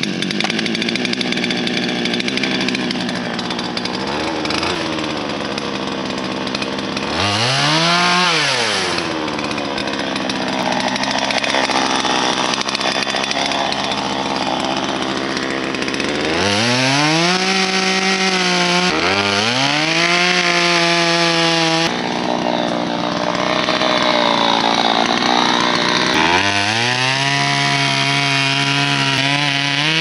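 Chainsaw cutting into the base of a standing hardwood tree to fell it, running at high revs. Several times the revs drop away and climb back up.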